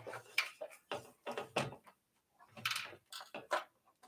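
Irregular clicks and knocks of a plastic-cased e-bike battery being worked loose and slid off its mount behind the seat tube.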